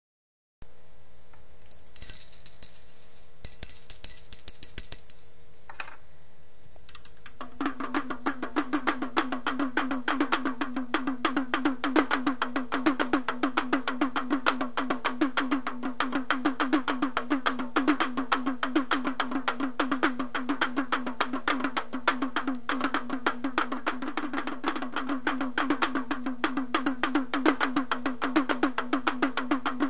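Intro music. It opens with two short high-pitched bursts like a sound effect, then about seven seconds in a fast, steady percussion rhythm starts and keeps going.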